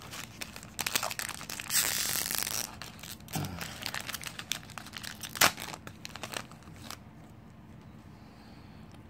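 Foil wrapper of a Prizm baseball card pack torn open and crinkled by hand, with a longer rip about two seconds in and a sharp crackle at about five and a half seconds. The crinkling stops about seven seconds in.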